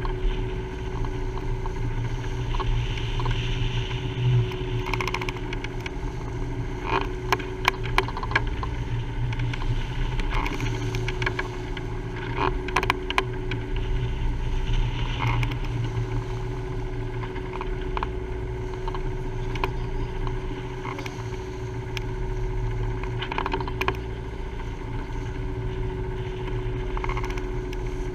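Wind and water rushing along the hull of a Beneteau Oceanis 411 sailing yacht under way in a rough sea, with irregular knocks and splashes as waves hit the bow and a steady hum underneath.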